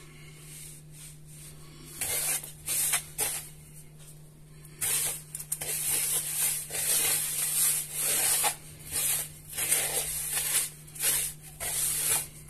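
Hand rubbing medium semolina with melted fat and oil in a wooden bowl, working the fat into the grains: repeated rubbing strokes that begin about two seconds in and run almost without a break from about five seconds in.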